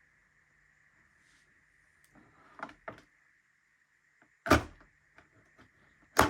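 Hard plastic clunks from handling the Tassimo Suny pod coffee machine: two small knocks, then two loud sharp clunks about a second and a half apart. A faint steady high whine runs underneath.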